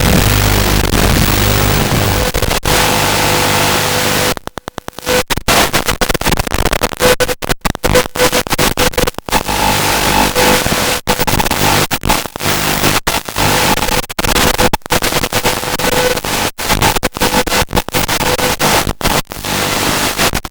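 Loud hiss like radio static, cut by many brief dropouts. A low motor hum under it fades out about four seconds in.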